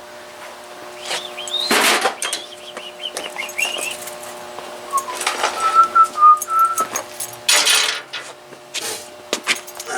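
High whistled notes: chirping glides in the first few seconds, then a run of short, steady notes in the middle. Short noisy rustles come between them, over a steady low hum.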